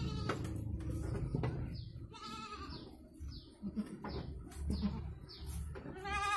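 Goat bleating: a high call about two seconds in and another starting near the end, over a steady low hum.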